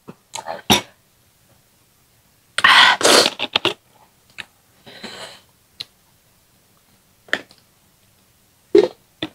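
Close-miked eating and breathing sounds: scattered small mouth clicks and smacks, with one loud noisy breath about three seconds in.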